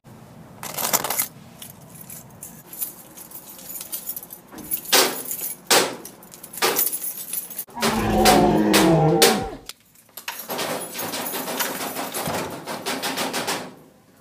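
Rustling, knocking and clatter of a phone being handled and moved about, with a boy's voice making a low drawn-out sound that falls in pitch about eight seconds in.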